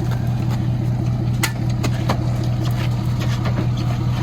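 A motor vehicle engine running steadily with a low, even drone, with a few sharp clicks over it, the loudest about one and a half seconds in.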